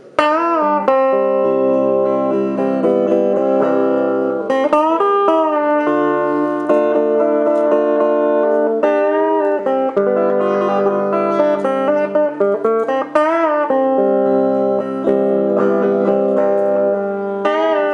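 Instrumental guitar introduction to a song. Long held notes and chords, with a few notes bent and wavering every few seconds.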